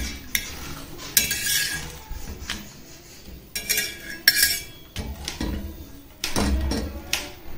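Steel spatula scraping and clinking against an iron tawa (griddle) as a papad is pressed down and moved while it roasts, in several irregular strokes.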